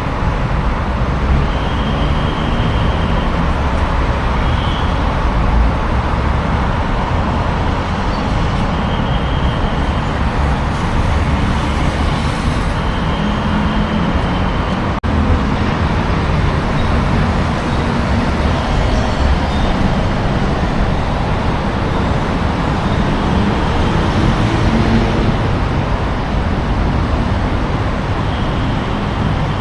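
Dense city road traffic: motor vehicle engines and tyres running steadily, with short high tones recurring every few seconds.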